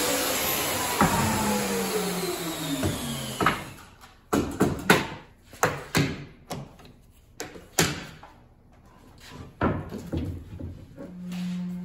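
Festool plunge router with dust extraction running, then spinning down with falling pitch and fading out about three and a half seconds in. After that come scattered sharp knocks and clatter of clamps and wooden jig parts being handled on a workbench.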